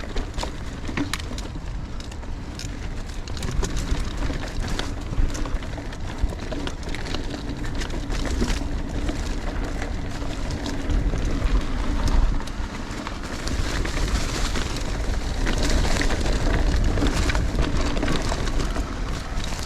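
Full-suspension mountain bike ridden along a dirt trail: tyres crunching over dirt and stones, with scattered clicks and rattles from the bike and a low rumble that grows louder about halfway through.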